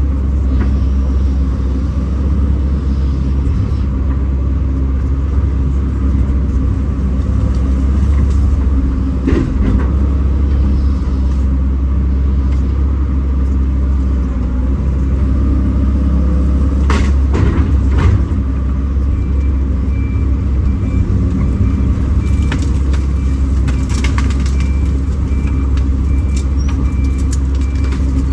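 Kobelco SK210 excavator's diesel engine running steadily, with a few sharp knocks and clanks. A series of short, high, evenly spaced beeps starts about two-thirds of the way through.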